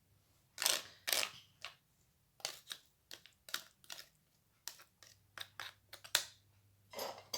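Short, sharp clicks and knocks at irregular spacing, about two or three a second, from handling things at close range.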